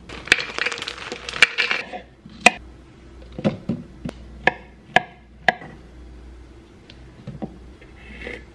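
Food pieces, mini cucumbers among them, dropped one by one into a clear blender cup: about six sharp knocks roughly half a second apart. They follow a second or two of busy clattering.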